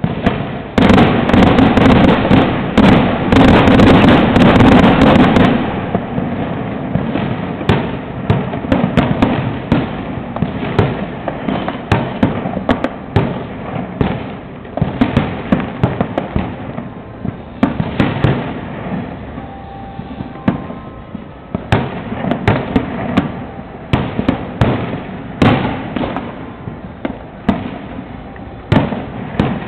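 Fireworks going off: a dense, rapid barrage of bangs about a second in, the loudest part, lasting some five seconds. After it comes a steady stream of separate sharp bangs and crackles.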